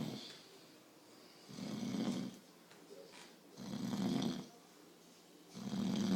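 A person snoring in sleep: about three low, rasping snores roughly two seconds apart, with a fainter hiss between them.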